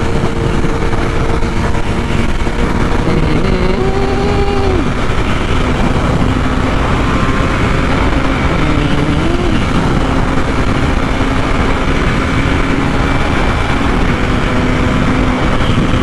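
BMW S1000RR inline-four engine running at high speed under heavy wind rush, its steady note briefly dipping and rising twice.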